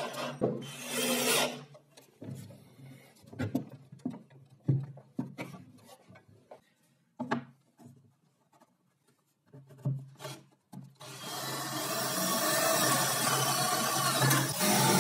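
A cordless drill runs in a short burst, followed by a series of light knocks as small wooden blocks are handled and set down on a wooden bench. About 11 seconds in, the cordless drill starts boring steadily into a small wooden block and keeps running.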